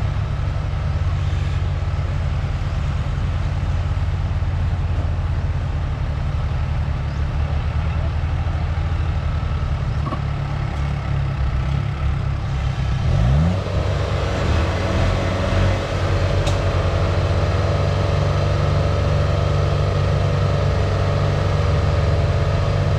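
A Kubota combine harvester's diesel engine runs steadily as the machine creeps forward on its tracks. About halfway through, the engine revs up and stays at a higher, busier pitch.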